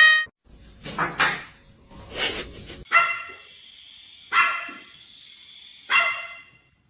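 A dog barking three times, about a second and a half apart, in the second half, after two short noisy sounds.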